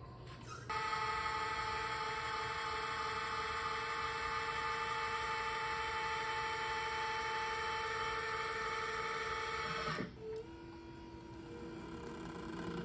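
Electric linear actuators of a LIFT-MONSTER aircraft tug whining steadily as they work the lift cradle under the nose wheel. The whine starts about a second in and cuts off suddenly about ten seconds in.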